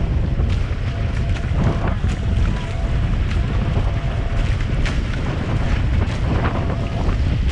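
Heavy wind buffeting the microphone over the rush of water along a Hobie 18 catamaran's hulls as it sails at speed, with short splashes of spray now and then.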